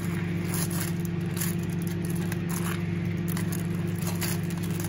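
Metal spoon stirring thick beef stew in a slow cooker lined with a plastic cooking bag: soft scrapes, squelches and crinkles of the plastic. Under it, a steady low machine hum.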